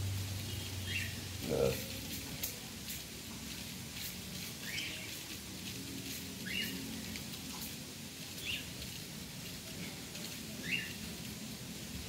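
Cockatiels giving short rising chirp calls, five single chirps about two seconds apart. A single louder, lower sound comes about a second and a half in.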